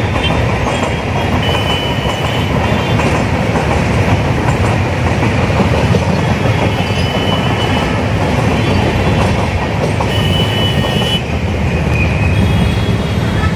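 Passenger train coaches rolling past on the rails: a loud steady rumble with clickety-clack, and a few brief high squeals.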